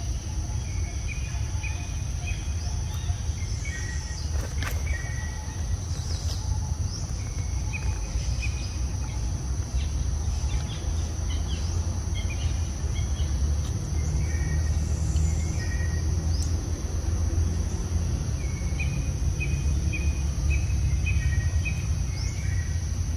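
Outdoor ambience: short bird chirps repeated over and over, over a steady high insect drone and a constant low rumble.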